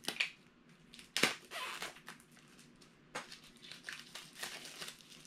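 Funko Soda tin cans being popped open by hand: several sharp metallic clicks and scrapes as the metal lids come off, the loudest about a second in, with plastic wrapping crinkling in between.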